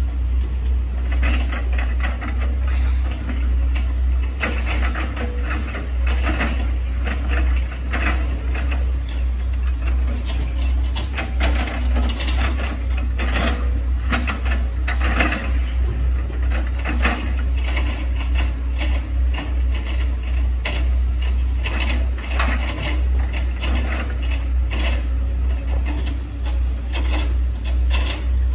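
Diesel engine of a Hitachi ZX110 MF excavator running under load, with irregular knocks and cracks from the working bucket and boom as it cuts through oil palm trunks.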